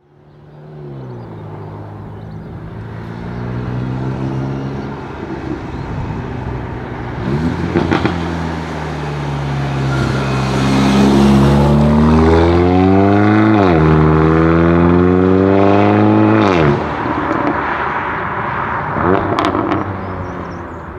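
Mercedes-AMG CLA45's turbocharged 2.0-litre four-cylinder breathing through an aftermarket Fi valved exhaust, revving as the car drives by. The revs climb and drop several times, loudest in the middle, with sharp exhaust pops and cracks, the last ones near the end as the sound fades.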